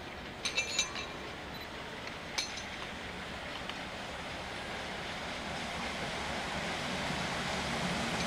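Steam-hauled train approaching, its steady noise growing slowly louder as it nears. A few short, sharp metallic clinks come about half a second in and again near two and a half seconds.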